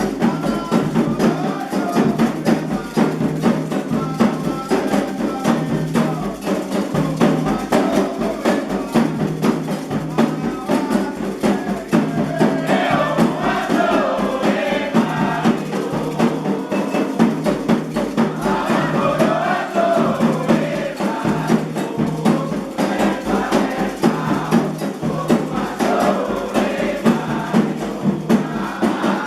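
Candomblé ritual music: hand drums and clacking percussion keep up a steady, fast rhythm under sung chant, with the singing standing out about twelve seconds in and again near twenty seconds.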